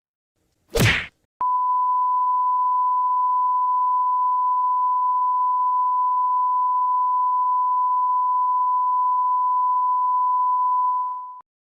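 A brief burst of noise, then a long, steady, single-pitched beep that holds for about ten seconds before fading out and stopping: a censor bleep sound effect.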